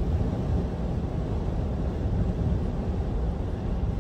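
Van driving along a road: steady engine and road noise, low and even throughout.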